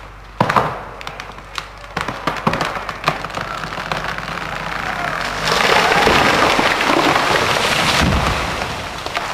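A large rotten old-growth tree cracking and snapping as it is pulled over, then falling with a long loud crash of breaking branches and a heavy thud as the trunk hits the ground about eight seconds in.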